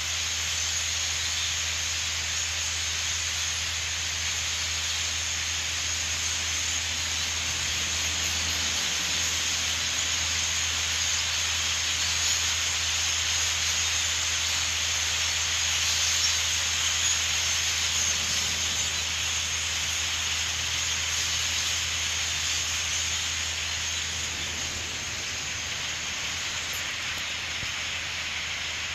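A huge flock of European starlings passing overhead: a steady, dense hiss of massed chatter and wing noise, swelling a little in the middle and easing slightly near the end.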